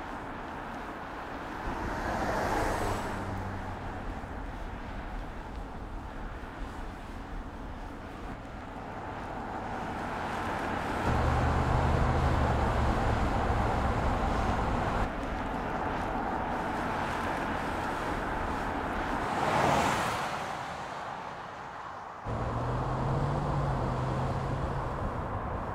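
Volvo S60 Polestar Engineered and its 2.0-litre four-cylinder driving past: a rush of engine and tyre noise swells and fades about two seconds in and again about twenty seconds in. Between them the engine runs with a steady low hum, which breaks off suddenly about fifteen seconds in and starts again about twenty-two seconds in.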